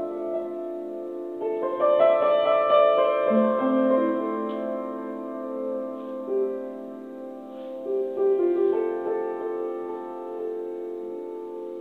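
Upright piano being played solo: held notes, then a quick run of notes about a second and a half in, more chords struck over the next few seconds, and the sound slowly fading out near the end.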